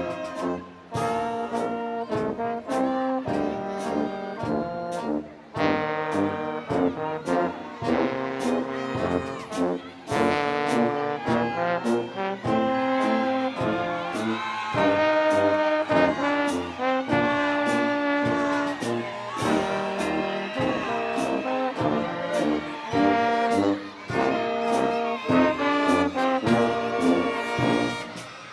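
Brass-led band music: trombones and trumpets playing sustained chords over a steady drum beat.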